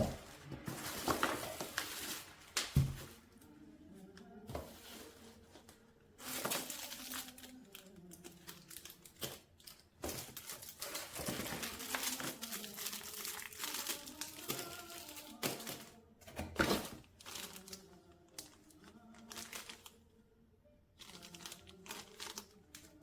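Packaging crinkling and rustling as it is handled, in irregular bursts with a few sharp knocks.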